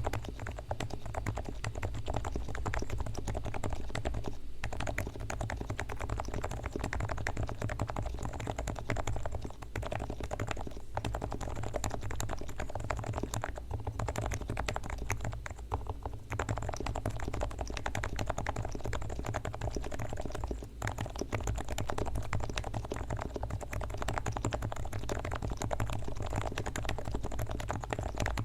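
Fast, continuous typing on a Leopold FC660C silent Topre keyboard with 45 g switches. The sliders and springs are lubed with Krytox, the stabilizers adjusted and lubed, and the case damped with Thinsulate, so the keystrokes come as a dense patter of soft, damped clicks. There are a few brief pauses.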